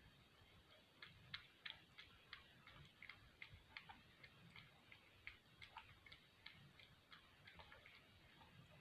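A cat lapping milk: faint, quick wet clicks of the tongue at about three a second, starting about a second in.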